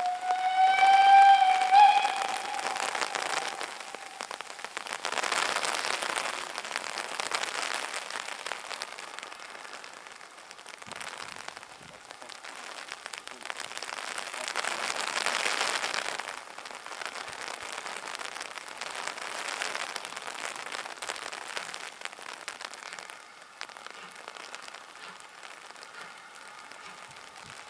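Steam locomotive whistle sounding one blast of about two seconds, pitch bending slightly upward at the end. After it, irregular gusts of wind rush over the microphone, swelling and fading.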